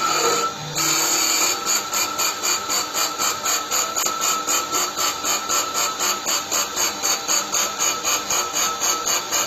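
U-UA5025 mini CNC wood-turning lathe cutting a spinning wooden makeup-brush handle blank. Its tools make a rasping cutting noise that pulses about three times a second, taking over from music about a second in.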